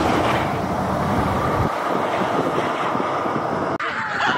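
A steady rushing noise outdoors, its deep rumble dropping away a little under two seconds in; music with a wavering melody starts just before the end.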